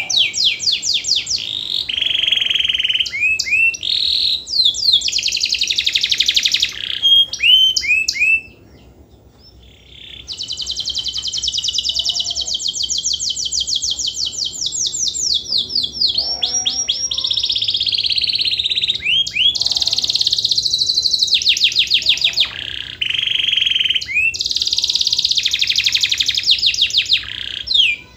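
Domestic canary singing a long song of rapid, rolling trills made of fast repeated notes. It breaks off once for about a second and a half near a third of the way in, then goes on in long trills.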